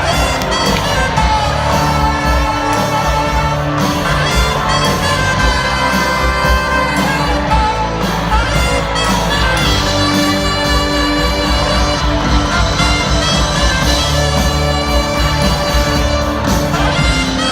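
Live rock band playing an instrumental passage, a lead melody line over steady bass and drums.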